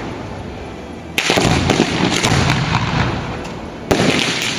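Fireworks going off: a sharp burst about a second in, followed by dense crackling and a low rumble that fade, then another sharp burst with crackling near the end.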